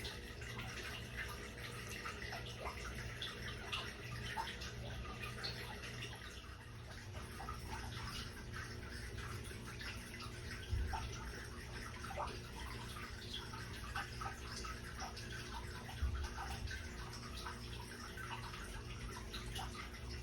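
Water trickling and dripping, with many small drips and crackles over a constant low hum, and two soft thumps partway through.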